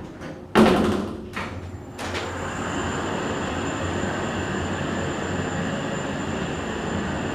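ThyssenKrupp TIME machine-room-less traction elevator setting off downward: a loud clunk about half a second in, then from about two seconds in the car travels with a steady rushing hum and a thin, high, steady whine.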